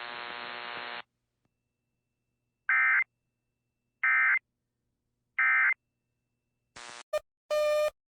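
Emergency Alert System audio: a steady broadcast hum cuts off about a second in, then three short identical digital beeps about a second and a half apart, the EAS end-of-message data bursts that close an alert. Near the end a brief burst of static and a click, then a harsh buzzing tone starts.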